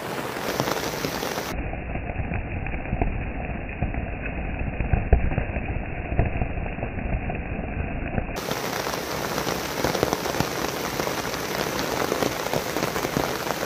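Heavy rain pouring down on a hiker's tarp shelter: a dense, even patter of drops. For several seconds in the middle the sound turns muffled, with a heavier low rumble.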